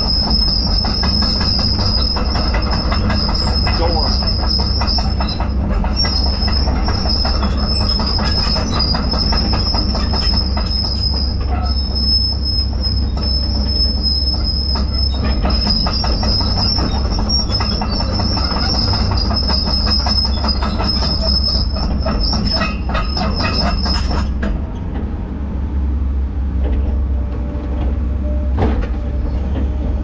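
Skid steer working a Harley rake (power rake) attachment: a steady engine rumble under a high-pitched whine with rattling. About 24 seconds in, the whine and rattling stop suddenly while the engine keeps running.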